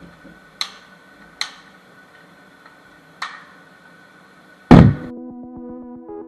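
Gunshots on a shooting range: three sharp, moderate cracks spaced irregularly, then one much louder shot near the end. Music starts right after the loud shot.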